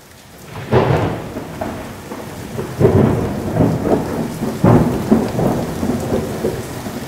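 Thunderstorm: steady rain with three claps of thunder, about a second in, near three seconds and near five seconds.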